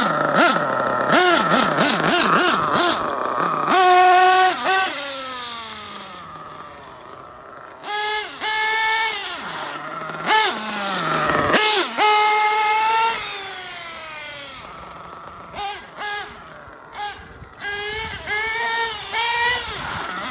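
Small nitro engine of a Losi 8ight-T RC truggy revving in repeated bursts: the pitch rises, holds and falls back to a quieter idle, with several short blips near the end. It is running on a rich ('nice and fat') tune.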